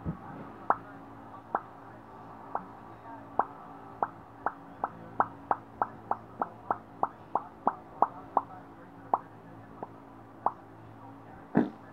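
A bubble noise made with the mouth: a string of about twenty short, wet pops that come faster in the middle and slow again, with a louder pop near the end.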